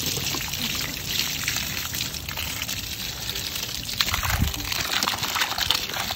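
Water from an open garden hose splashing steadily onto a dirt bike's fork and frame and pouring onto wet, muddy ground, with irregular splatter.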